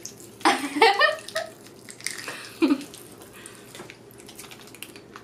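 A wordless vocal exclamation and giggling about half a second in and again midway, with faint crackling clicks of Pop Rocks-style popping candy fizzing in a mouth.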